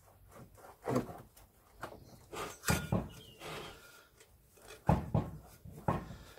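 Rusty transmission brake drum on a Land Rover Series gearbox being rocked and turned by hand, giving irregular metallic clunks and scrapes as it shifts on its shaft. The drum is stuck and not yet coming off.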